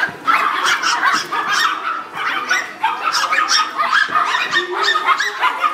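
Puppies yapping: a quick, continuous run of short, high-pitched barks, several a second.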